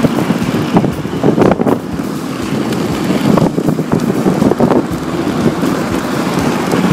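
Wind rushing over the microphone together with the steady rumble of inline skate wheels rolling at speed, broken by irregular scrapes and clicks.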